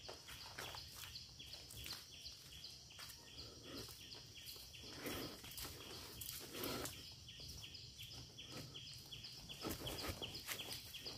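Faint outdoor ambience: a high chirping call repeating at an even rhythm of about three a second, with a few soft, scattered rustling steps.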